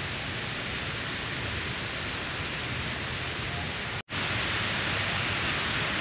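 Steady, even rushing noise of the outdoor surroundings, with no distinct events; it cuts out for an instant about four seconds in and comes back slightly louder.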